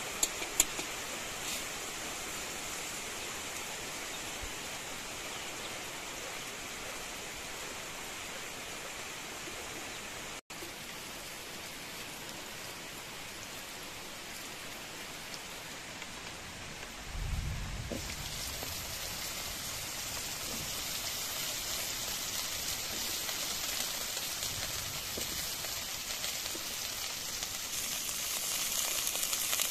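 Oil sizzling in a kadai with okra frying: a steady hiss, with a thump a little past halfway, after which the sizzling gets brighter and louder toward the end.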